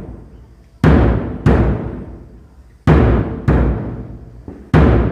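A large drum struck in a slow repeating rhythm of two beats about half a second apart, each pair coming roughly every two seconds. Each stroke is deep and rings out before the next.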